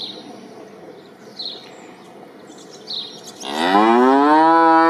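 A cow mooing: one long, loud moo starts about three and a half seconds in, rising in pitch and then held steady.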